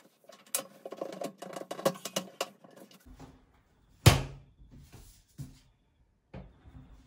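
A plastic toilet seat and lid being handled and shifted into place over a bidet attachment: a quick run of small clicks and rattles, then one loud clack about four seconds in, followed by a few lighter knocks.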